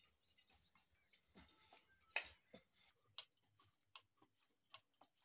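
Faint, irregular knocks and clicks of a wooden rolling pin working paratha dough on a round rolling board, with one louder knock about two seconds in. A few short high chirps, like a small bird, sound in the first half.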